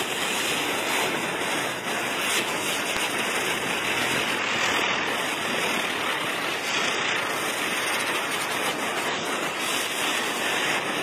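Small ground firework spraying sparks: a steady hiss that keeps an even level throughout.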